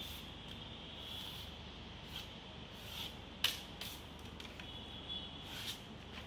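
A few short scrapes and taps of a hand trowel working screed on a wall, the loudest about halfway through. Under them runs a faint, steady high-pitched whine.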